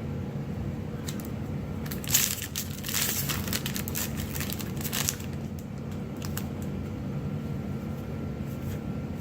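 Foil booster pack wrapper crinkling as it is handled and opened, in short crackly bursts about two seconds in and again about five seconds in, over a steady low hum.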